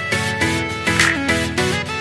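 Background music: a stepping melody over a bass line, with a sharp beat accent about once a second.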